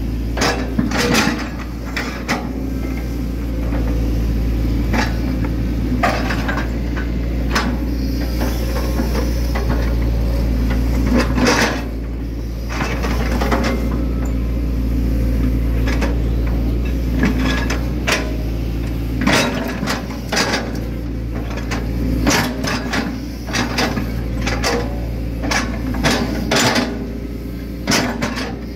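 Hitachi Zaxis 110 excavator's diesel engine running steadily, with repeated knocks and clunks as the bucket scoops and pats down mud, coming in quick runs near the middle and toward the end.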